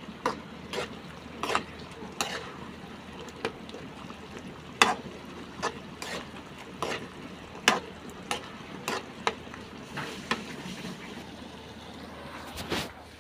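A spoon stirring beetles in thick tomato sauce in a metal pan, knocking and scraping against the pan in irregular clicks about once or twice a second, over a low sizzle of the simmering sauce.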